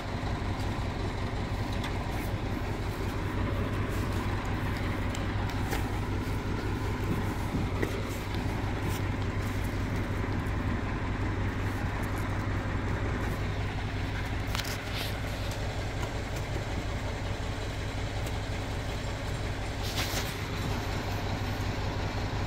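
Light dump truck's diesel engine running steadily, a low even hum, with a couple of short sharp knocks late on.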